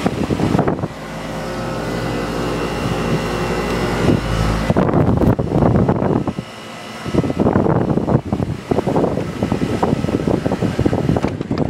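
Outdoor unit of a 1995 Miller 3.5-ton central air conditioner running, its General Electric condenser fan motor giving a steady hum. The fan's discharge air buffets the microphone in an uneven, gusty rumble, steadier for a few seconds near the start.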